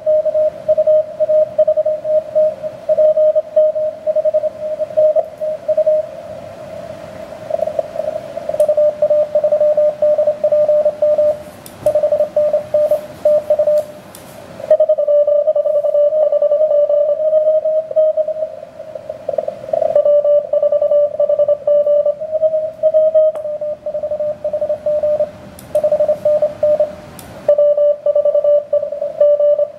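Morse code (CW) heard through a ham radio transceiver on the 17 m band: a single tone keyed rapidly on and off, with band hiss in the pauses between sendings.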